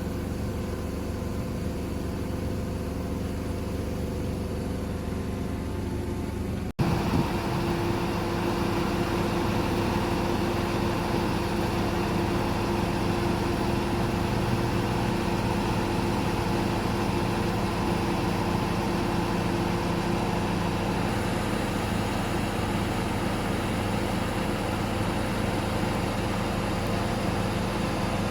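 XCMG truck crane's diesel engine running steadily. About seven seconds in there is a sudden cut, after which the engine runs a little louder with more mechanical noise.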